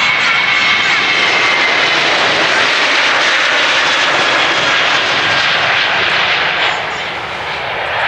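Boeing 737-800's twin CFM56-7B turbofans at takeoff thrust during the takeoff roll and liftoff: a loud, steady jet roar with a high whine over the first half, easing slightly near the end as the jet leaves the ground.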